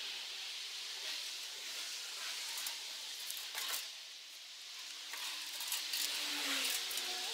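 Steady hiss of outdoor background noise, with a few faint clicks a few seconds in and faint low tones near the end.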